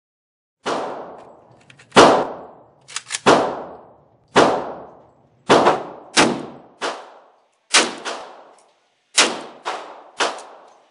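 Hungarian FEG AMD-65 short-barrelled AK rifle in 7.62x39 with a muzzle brake, firing about ten single shots at an uneven pace, half a second to a second and a half apart. Each loud crack is followed by a short echo from the range.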